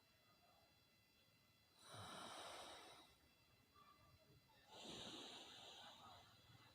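Slow, deep nasal breaths of alternate-nostril breathing (anulom vilom pranayama), taken through one nostril at a time. Two long breaths, each about a second, about three seconds apart.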